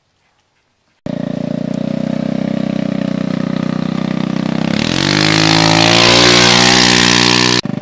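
After about a second of silence, a motor engine cuts in already running steadily, then revs up with a rising pitch about four seconds in, breaking off briefly near the end.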